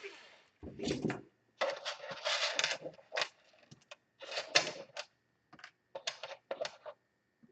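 Irregular small hard clicks and rattles of screws and plastic laptop case parts being handled and set in place during reassembly.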